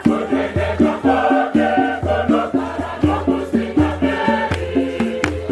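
Choir singing with instrumental backing: a steady beat and a short repeating bass figure under the voices.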